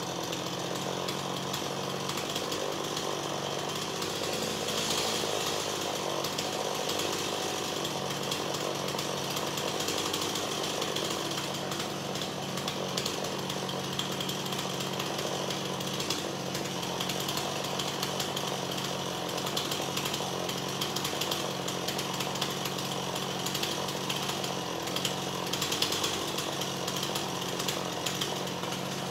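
Stihl two-stroke chainsaw idling steadily after being let off the throttle, with a few light clicks and knocks.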